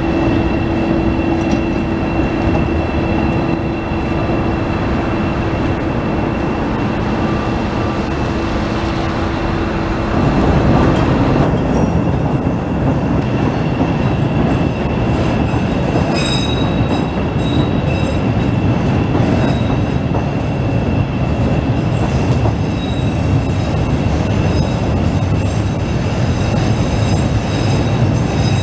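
Chicago Transit Authority 'L' trains running over the steel elevated Loop structure: a steady rumble of wheels on the rails with a low steady tone. About eleven seconds in the sound changes, and from about halfway on a train rounding the curve gives high, shrill wheel squeal.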